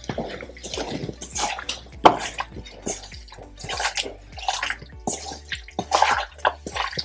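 Hand squishing and turning raw mutton pieces through a wet spice marinade in a stainless steel bowl: irregular wet squelches and slops, several a second.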